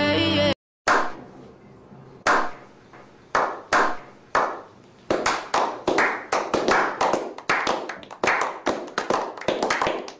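A small group of men's hands clapping: a slow clap of single, spaced claps that quickens into faster, overlapping applause from about halfway through. A music track cuts off suddenly just before the first clap.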